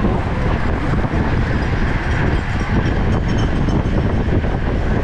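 Steady wind rushing over the microphone of a camera mounted on a racing bicycle at speed, mixed with the road noise of a bunch of road bikes riding close together.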